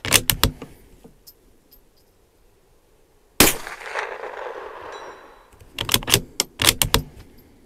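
Bergara B14R bolt-action .22 LR rifle: the bolt is worked with a quick run of metallic clicks, a single shot goes off about three and a half seconds in and echoes for a couple of seconds, then the bolt is cycled again with another run of clicks near the end.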